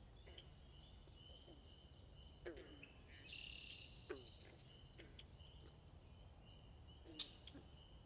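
Faint flock of flamingos calling: short, low honks that slide down in pitch, about one a second, over thin high chirps and trills. A single sharp tick sounds about seven seconds in.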